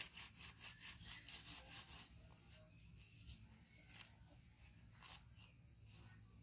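Faint, fast rubbing of cloth, about six even strokes a second, stopping about two seconds in, then a couple of single brushes.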